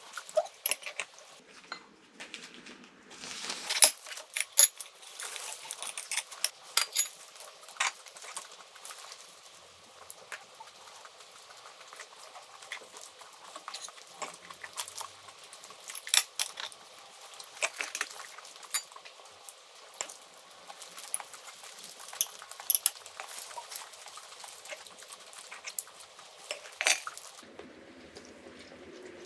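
Eating steamed red king crab: irregular sharp clicks, taps and crackles of crab shell and metal chopsticks against shell and plates, with a dense run of crackling about three seconds in.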